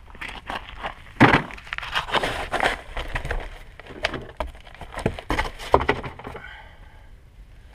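Irregular rustling, scraping and knocking of cardboard and a plastic oil drain pan being handled and slid into place on the ground, with the loudest knock about a second in.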